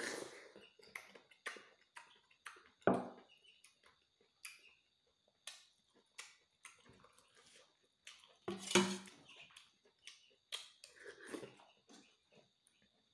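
Close-up eating sounds: wet chewing and lip smacks while rice and insect grubs are eaten. Two short, louder throat sounds come about 3 s in and near 9 s.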